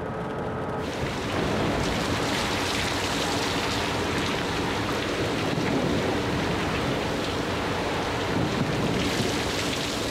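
Heavy rain pouring steadily, a dense even hiss of drops that swells to full strength about a second in.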